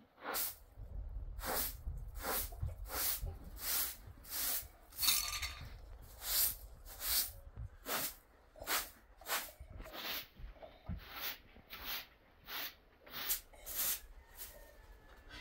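Straw hand broom sweeping a concrete floor: a steady run of short swishing strokes, about three every two seconds, stopping near the end.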